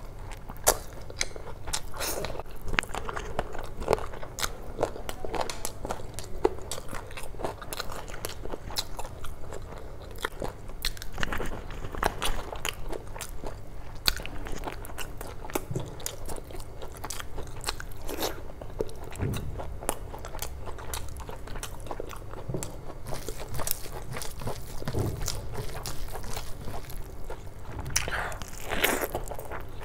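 A person eating close to the microphone, biting and chewing spicy chicken curry off the bone and mouthfuls of curry rice eaten by hand, with a steady stream of small mouth clicks throughout.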